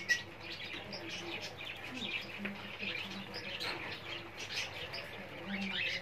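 Caged parakeets chirping and chattering: a steady stream of short, high calls, with one sharp, loud call right at the start.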